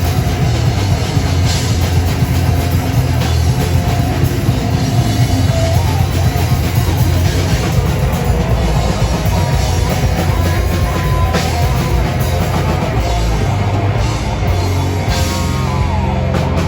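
Rock band playing live at loud, steady volume, led by a drum kit with cymbals, in a heavy metal style.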